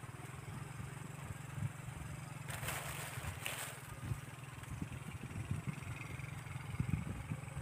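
A steady low hum of a small engine running, with fine even pulsing, and a brief rustle about two and a half seconds in.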